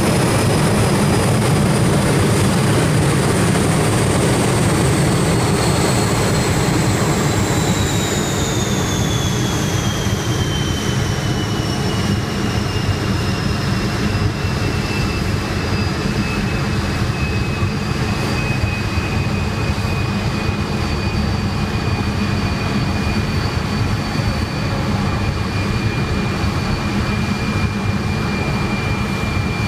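Rolls-Royce Derwent 8 centrifugal-flow turbojet running, a loud roar with a high compressor whine. Over about ten seconds the whine falls in pitch as the engine slows, then it holds steady at the lower speed while the roar goes on.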